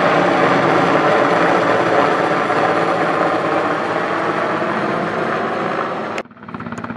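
Mil Mi-172 twin-turbine helicopter flying overhead, its rotor and turbine noise loud and steady. About six seconds in the sound drops suddenly to a fainter, more distant helicopter.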